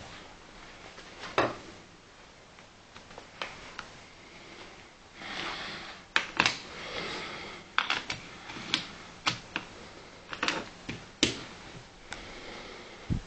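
Irregular sharp clicks and rattles from a KJW KP-06 gas blowback airsoft pistol being handled, with a short rustle about five seconds in.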